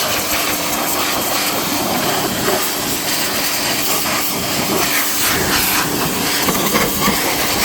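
Harbor Freight Portland pressure washer running, its water jet spraying with a steady hiss over a faint steady hum.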